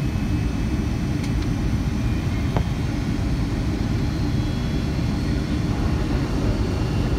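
Steady engine and airflow noise inside the cabin of a Boeing 757-200 on final approach, heard from a window seat beside the wing. The noise is mostly low in pitch and does not change.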